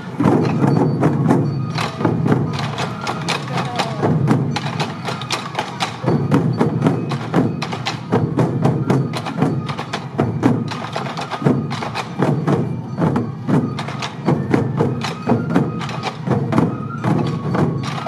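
A large troupe of waist-slung sansa taiko drums beaten together in a steady fast rhythm: sharp stick strokes over the deep boom of the drum heads.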